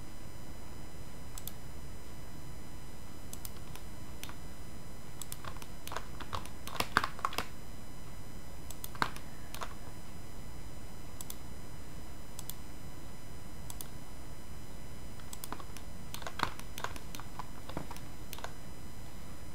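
Scattered clicks of a computer keyboard and mouse, a few at a time in small clusters, over a steady faint hum and hiss.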